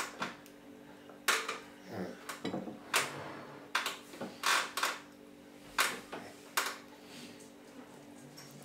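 Scattered sharp clicks and light knocks, about nine in all, from hands, a plastic spoon and a wooden high-chair tray being handled while a baby is fed. A faint steady hum sits underneath.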